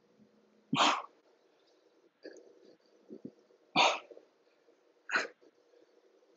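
Sharp, forceful exhalations, one burst of breath every couple of seconds as the exerciser works through split squat and overhead press reps.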